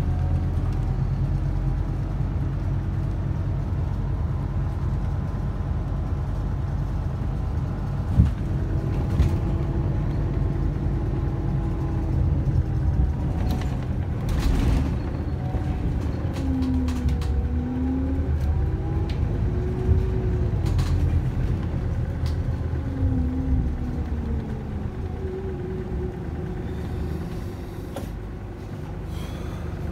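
A Scania K280UB Citywide LE bus's five-cylinder diesel engine, heard from inside the passenger cabin as the bus drives, with a whine that rises and falls in pitch as it changes speed. There is a single sharp knock early on, and the engine sound eases off near the end as the bus slows at a stop.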